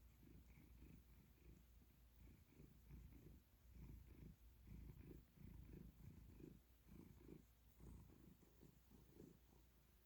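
Domestic cat purring faintly, a low steady run of soft pulses.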